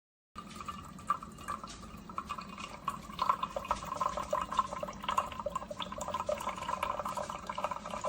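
Tastyle single-serve coffee maker dispensing brewed coffee into a cup: a trickling, dripping liquid stream over a steady low hum, which gets louder about three seconds in.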